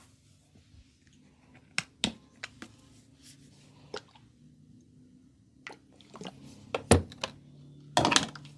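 Hands massaging an oiled head and hair, giving a series of sharp, wet slaps and clicks. The loudest slap comes about seven seconds in, followed by a quick flurry of strokes near the end.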